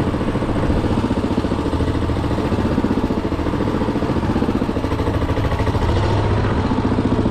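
Walk-behind-tractor engine in a converted Muravey three-wheeled scooter running steadily, with a fast, even exhaust beat.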